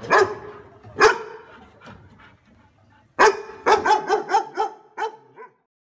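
Dog barking: two sharp barks in the first second or so, then a quick run of high yaps from about three seconds in that stops shortly before the end.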